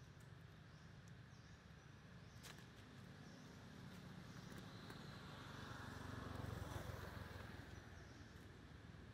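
Near-silent outdoor ambience; a faint low rumble swells and fades about six to seven seconds in.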